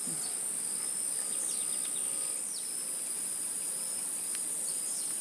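Steady, high-pitched drone of insects, unbroken throughout, with a few short falling chirps over it.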